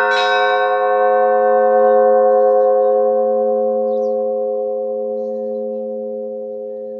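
Church bell struck once right at the start, then ringing on, a low hum under several clear overtones, slowly fading away.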